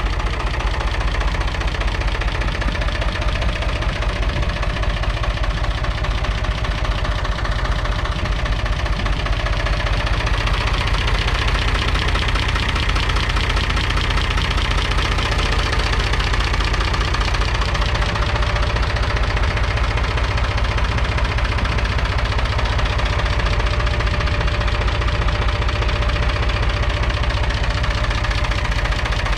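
1966 David Brown 880 Selectamatic's 2.7-litre three-cylinder diesel engine idling steadily.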